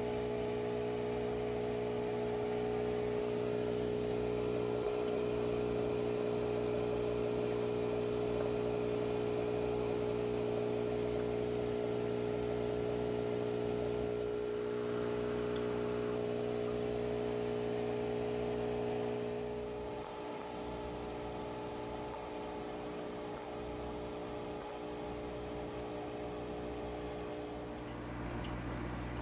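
Aquarium pump running with a steady electric hum and a light wash of water, dropping in level about two-thirds of the way through.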